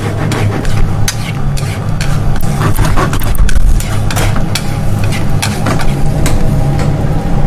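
Utensils stirring and scraping scrambled eggs in a nonstick frying pan: irregular clicks and scrapes of chopsticks and a spatula against the pan, over a steady low hum.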